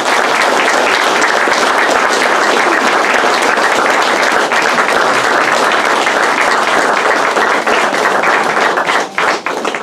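Audience applauding: many people clapping together steadily, thinning out near the end.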